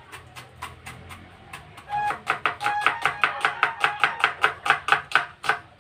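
Kitchen knife mincing red onion on a plastic cutting board: quick, even knife strikes, light at first, then louder and about five or six a second from about two seconds in.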